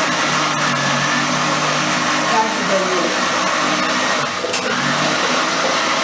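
Steady whooshing motor noise from a running kitchen appliance, continuous and unchanging in level.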